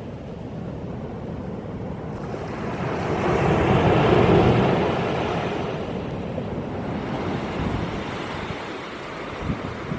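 Sea waves breaking on the shingle beach of Shichiri Mihama. One wave swells and crashes about four seconds in, then washes back, and a few short clatters come near the end.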